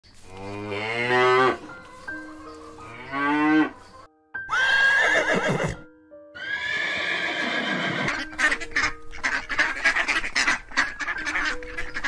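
Cattle mooing twice in long, deep calls, then a horse whinnying twice, then a flock of domestic ducks quacking in a rapid, crowded chatter. Faint background music plays under them.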